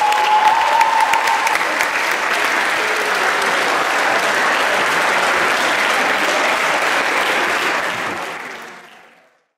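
Crowd of spectators applauding steadily in a large hall, with a held high tone over the clapping in the first second and a half; the applause fades out near the end.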